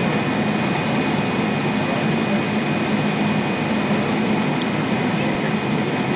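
Steady jet airliner cabin noise, the engines and cabin air running together, with a low hum and a thin, steady high whine over it.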